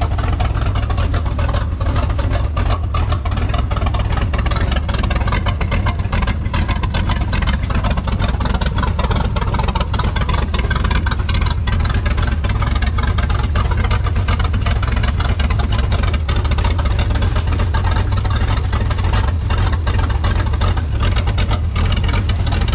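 1929 Ford Model A rat rod's 305 V8 engine on twin carburettors, idling steadily.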